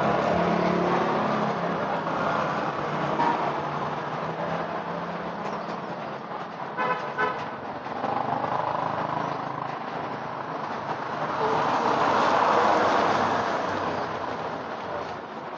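Street traffic: motor vehicles running and passing, with one growing louder and passing about twelve seconds in. There is a brief pitched sound about seven seconds in.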